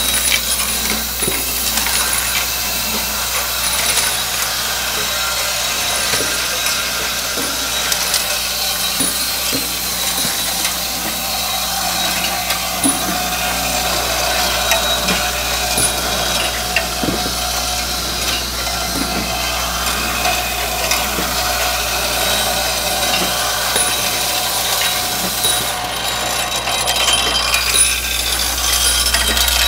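Bolt feeder running: steel bolts clattering and rattling continuously through a reciprocating ram elevator and straight-line vibratory orientor, over a steady low hum.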